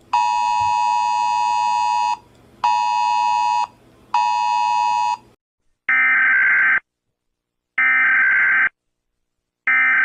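Emergency Alert System tones from a simulated broadcast. The steady two-tone attention signal beeps three times, once for about two seconds and then twice for about a second. These are followed by three screechy, buzzy digital data bursts of about a second each, separated by silences.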